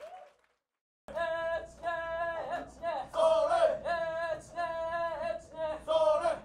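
About a second of silence, then voices chanting a cappella in a steady, repeated rhythm of short held notes.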